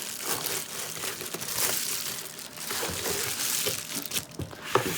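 Packaging crinkling and rustling as a new camera body is unwrapped, with a few small handling clicks and one sharper click near the end.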